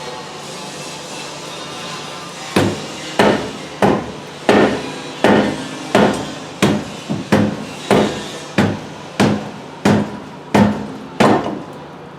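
Hammer blows on the front suspension while the lower arm is being replaced: about fifteen sharp strikes, roughly every two-thirds of a second, each ringing briefly, starting about two and a half seconds in.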